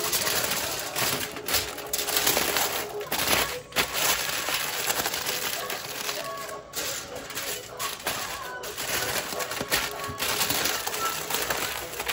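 Aluminium foil crinkling and crackling as it is folded and pressed tightly around a rack of ribs.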